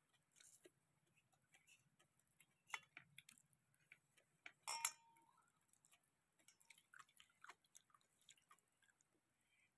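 Faint, scattered eating sounds: soft chewing and small clicks of fingers and food against steel plates, with one brighter clink about five seconds in.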